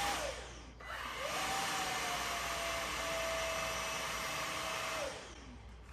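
Samsung Jet 90 cordless stick vacuum's motor switched off and spinning down, then switched back on about a second in. It runs for about four seconds as a steady whine with rushing air, then winds down again as it is switched off near the end.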